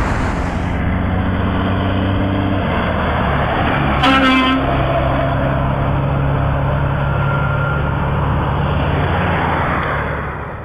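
Heavy truck's diesel engine running with a steady low drone, its pitch shifting about two and a half seconds in. About four seconds in, a short blast of the truck's air horn lasting about half a second.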